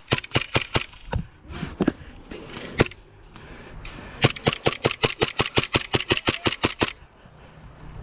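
Airsoft guns firing: a quick string of shots and then a few single shots. Near the middle comes a sustained full-auto burst of about ten shots a second, lasting nearly three seconds.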